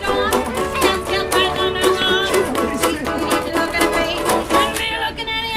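Live old-time string band music: a fiddle carries the wavering melody over a steady rhythm of regular strokes.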